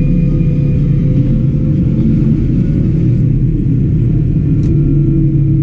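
Tractor's diesel engine running steadily under way at road speed, heard inside the cab as a loud, even low drone.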